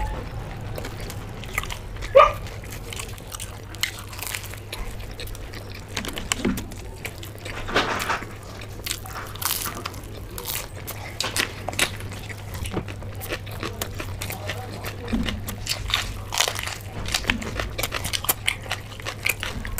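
Close-up eating sounds of fried samosas and raw green chillies being bitten and chewed: scattered crisp crunches and wet mouth sounds, over a steady low hum.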